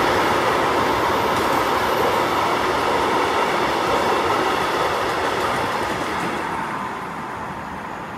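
Empty BTA bogie timber wagons rolling past: a steady noise of wheels on rail that fades over the last couple of seconds as the end of the train draws away.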